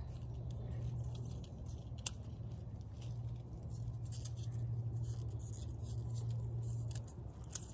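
Snow pea vines rustling and crackling as pods are picked by hand, with a sharp snap about two seconds in and another near the end, over a steady low hum.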